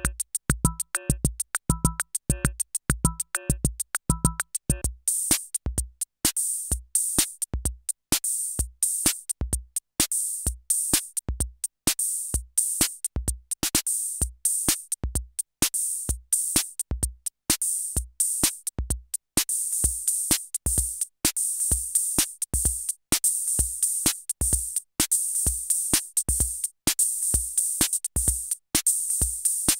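Roland TR-6S drum machine playing a CR-78-style disco pattern with a steady kick drum. Short pitched blips and a low drum hit fill the first five seconds, then drop out and give way to a rhythmic hissing hi-hat layer.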